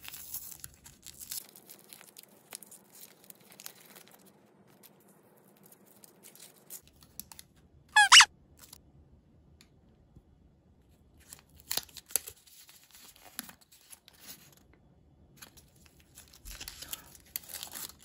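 Paper wrappers of small Japanese bubble gum being peeled open by hand, crinkling and tearing in short spells, with a foil wrapper crinkling near the end. About eight seconds in, a brief high wavering tone is the loudest sound.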